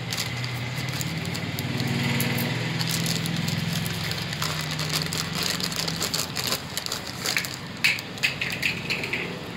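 Thin plastic packaging bag crinkling and crackling as the nebulizer mask and tubing are pulled out of it. The crackles come thickest and loudest in the last few seconds. A steady low hum runs underneath for about the first six seconds.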